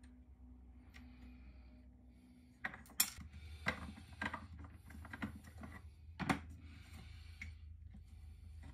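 Hands handling a plastic security-camera housing: faint rustling at first, then from about a third of the way in a run of sharp plastic clicks and knocks with rustling in between.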